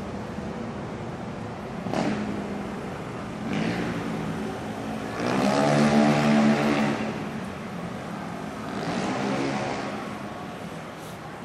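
City street traffic with motor scooters riding past close by. Their engines swell and fade, the loudest pass about halfway through and another near the end, over a steady traffic hum. There is a short sharp click about two seconds in.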